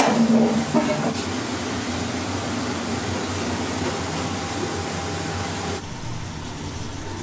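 Steady hum and hiss of room noise in a small restaurant, with the high hiss dropping away about six seconds in.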